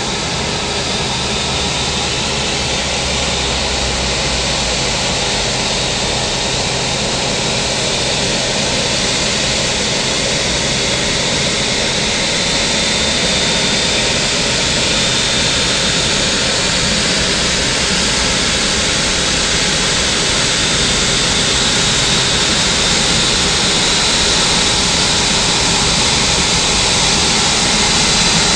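Airbus A380's Engine Alliance turbofan engines running at taxi power as the airliner rolls past at close range: a steady jet roar with a thin high whine, slowly growing louder as it nears.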